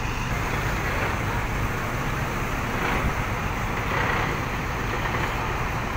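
Diesel bus engines running with a steady low rumble, mixed with general traffic noise.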